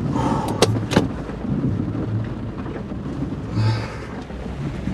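Inside the cabin of a Geo Metro, the 1.0-litre three-cylinder engine running with rain and the windshield wipers going; the engine is running smoother and quieter on a newly replaced fuel injector. Two sharp clicks come about half a second and a second in, and a short squeak about three and a half seconds in.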